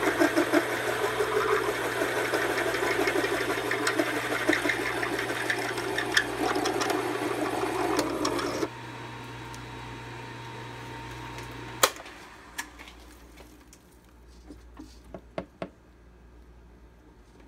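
Metal lathe drilling the wrist-pin hole through a cast piston: a fast rattling chatter of the drill cutting over a steady motor hum, which stops about nine seconds in. The lathe then runs on with just its hum until a sharp click a few seconds later cuts the hum off, leaving scattered light ticks.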